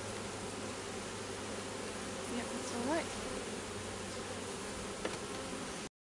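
Honeybees buzzing in a steady drone around an open hive of honey frames, with a short rising buzz about halfway through. The sound cuts off abruptly near the end.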